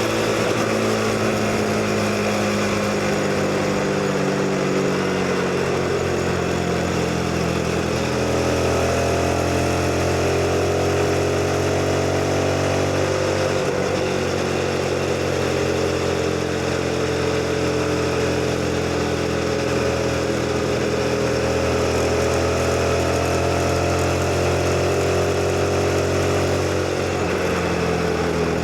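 CFMoto 250NK motorcycle's single-cylinder engine running under way. The engine note climbs slowly through the revs, drops sharply a little under halfway through and again near the end, as at gear changes, over steady wind and road noise.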